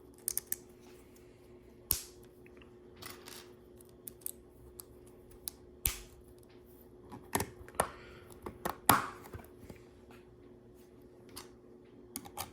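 LEGO bricks being handled and pressed together: scattered sharp plastic clicks and short rustles, about a dozen in all, the loudest click about nine seconds in, over a faint steady hum.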